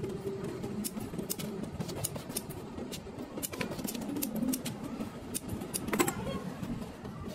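Thin lead battery plates clicking and clattering against each other as a stack of them is handled and squared up, in quick irregular clicks, with one louder knock about six seconds in.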